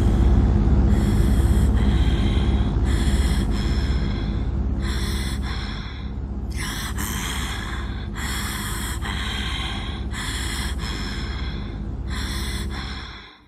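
Cartoon sound effects: a steady low engine drone from the toy plane, with a short hissing sound repeating about once a second over it. The drone eases off about halfway through.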